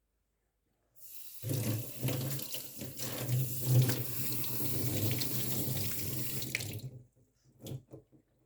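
Water running from a tap for about six seconds, then shut off, with two or three small knocks just after.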